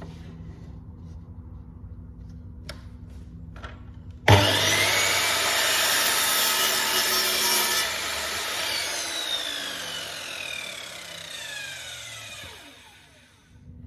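Electric saw starting up and cutting through a piece of wood to trim it to length, then its blade spinning down with a falling whine after the cut, as the offcut is chopped off.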